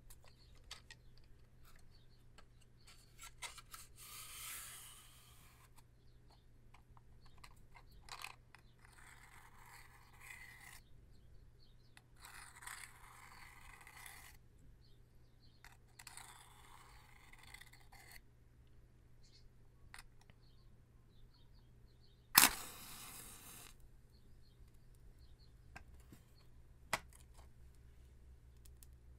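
A wooden Redheads safety match drawn slowly along the matchbox's striking strip in four scraping passes of about two seconds each. Then it is struck: a loud sudden scrape as the head flares alight, fading over about a second. A single light click follows near the end.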